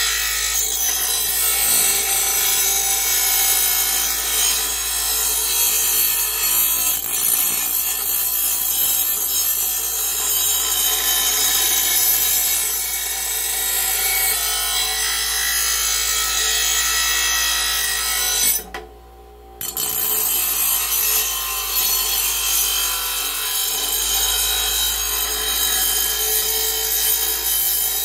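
Porter-Cable bench grinder wheel grinding the edge of a steel lawn mower blade, a loud continuous rasping grind as the damaged, rounded-off edge is sharpened. The grinding breaks off for about a second roughly two-thirds of the way through, then carries on.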